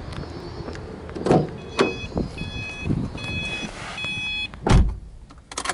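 Car door and interior being handled with a few knocks, while the car's warning chime beeps four times, about once every three-quarters of a second. A heavy low thump near the end, the driver's door shutting, is the loudest sound. The engine is not yet running.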